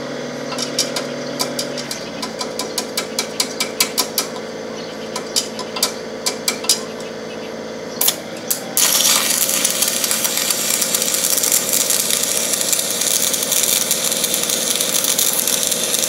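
Engine-driven welding generator running steadily, with a string of sharp taps and clicks over the first half. About nine seconds in, the welding arc strikes and crackles loudly for the rest of the stretch.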